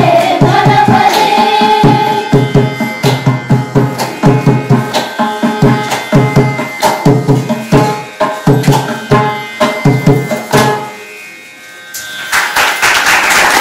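Ending of a Carnatic song: children's voices hold a final sung note at the start, then a mridangam plays a fast closing passage of dense strokes. The music stops about eleven seconds in, and applause starts about a second later.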